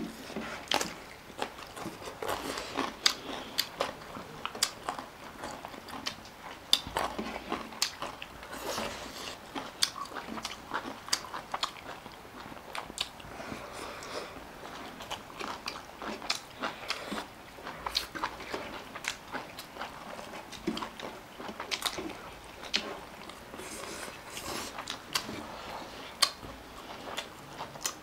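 A person eating close to the microphone: chewing and biting food, with many irregular crunches and clicks.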